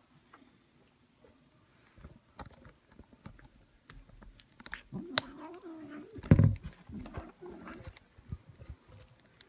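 A cat mewing: a few drawn-out, wavering calls from about five to eight seconds in, with a loud thump partway through. Soft clicks and rustles come before the calls.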